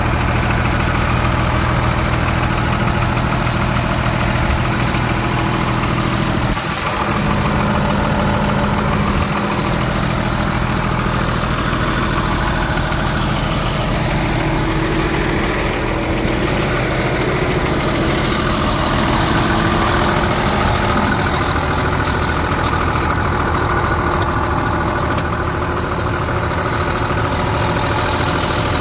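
John Deere 4955 tractor's six-cylinder turbo diesel idling steadily.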